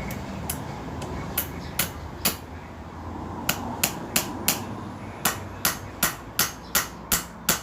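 Hammer driving a nail into wood: about fifteen sharp blows in three runs, quickening to about three a second in the last run.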